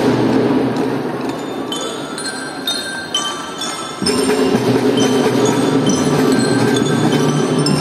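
Children's marching drum band playing: metal bell-lyra bars strike out a short run of clear ringing notes while the drums drop back, then the drums come back in loudly about four seconds in under the bells.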